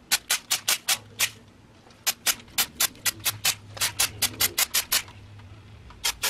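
Aerosol brake cleaner sprayed from the can in many short hissing bursts, several a second, with a pause about two seconds in and another near the end.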